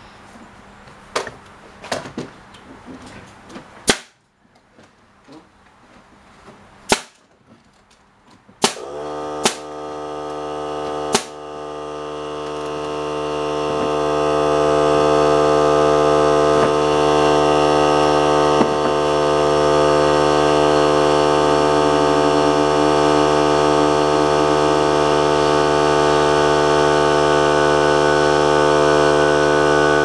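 Pneumatic brad nailer firing: a few light knocks, then five sharp shots spread over several seconds. Partway through, an air compressor kicks on and runs with a steady hum that grows louder for a few seconds, then holds, refilling its tank.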